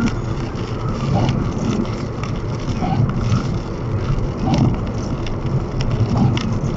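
Steady road and tyre noise inside a Tesla Model S cabin at highway speed in the rain, with raindrops ticking irregularly on the windshield.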